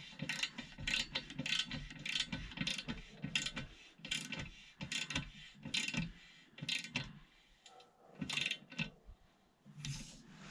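Ratchet head of a torque wrench clicking in quick back-and-forth strokes as the nut on a Continental TPMS sensor's valve stem is run down against an aluminium alloy wheel rim. The clicks are dense at first, then thin out to a few short runs near the end.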